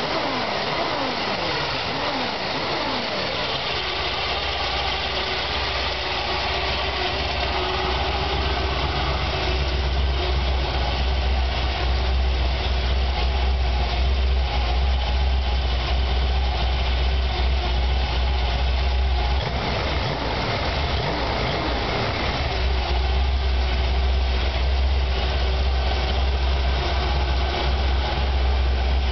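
Chevy 454 big-block V8 running at a rough idle on its first start. Its speed falls over the first few seconds and settles into a steady low idle, which dips and recovers about twenty seconds in.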